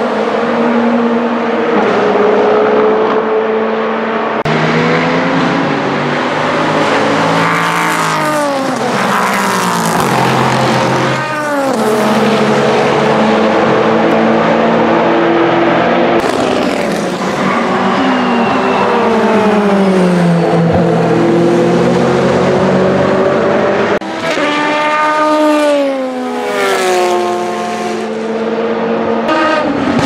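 Le Mans prototype race cars passing at speed, one after another. The engines change pitch through gear changes and drop in pitch as each car goes by.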